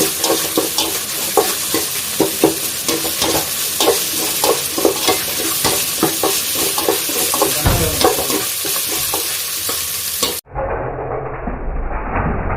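Small onions, ginger-garlic paste and dried red chillies sizzling in hot sesame oil, stirred with many quick scraping strokes against the pan. Near the end the sound cuts off abruptly to a duller, muffled noise.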